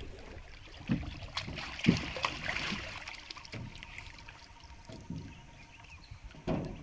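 Knocks and thumps on a wooden boat's hull as a man climbs aboard from the water, with water splashing and trickling around it. The loudest thumps come about one and two seconds in, with another near the end.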